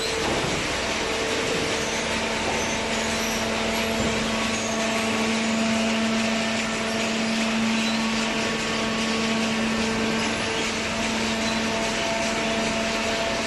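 Automatic hydraulic cardboard baler running: a steady machine hum over a constant hiss, with a lower hum tone setting in about a second in.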